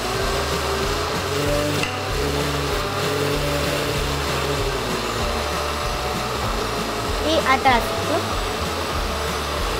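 Countertop blender running steadily, puréeing tomatoes and onions into a salsa. A short higher-pitched sound rises over it about three-quarters of the way through.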